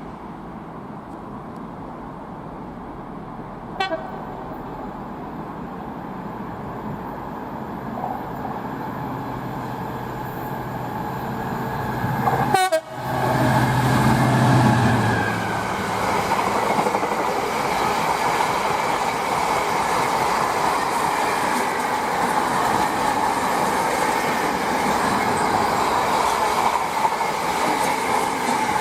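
Freight train passing at speed: its rumble builds, the locomotive goes by with a horn about 13 s in, and the wagons then run past steadily.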